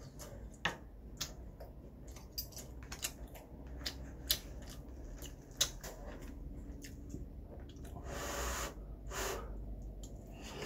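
Metal spoon and chopsticks clicking and scraping against food bowls as food is scooped up, a string of sharp clicks in the first six seconds. Near the end, chewing and two short breathy rushes of noise.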